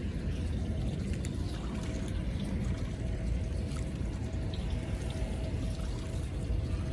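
Water trickling and splashing over a steady low rumble.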